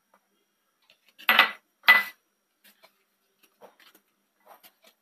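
Two short clatters of kitchenware about half a second apart, a little over a second in, the second with a brief ring, followed by a few faint ticks.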